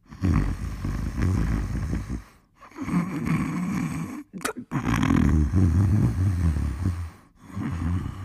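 Cartoon bear snoring: four long, rough, low snores in a row, with a brief high whistle between the second and third.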